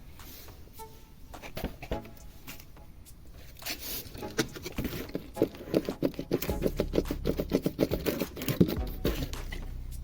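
Hand-tool work under the car: scattered clicks and knocks, then from about four seconds in a rapid, regular run of clicking and scraping.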